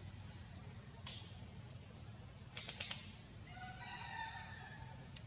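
A rooster crowing once, a single drawn-out call in the second half. Before it come a few short, sharp clicks or rustles.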